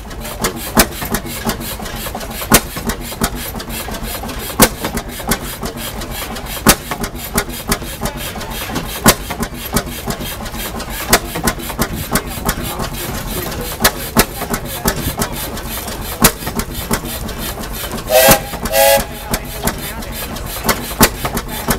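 Large antique single-cylinder stationary engine with big flywheels running and driving a flat belt, firing with a sharp bang about every two seconds at slightly uneven intervals. Near the end a whistle toots twice.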